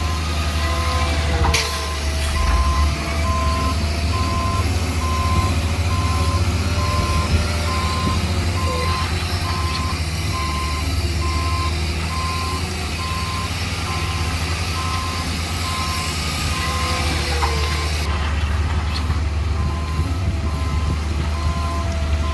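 Reversing alarm on a heavy construction machine, beeping in a steady repeating pattern over the low, steady rumble of a diesel engine running. A single knock sounds about a second and a half in.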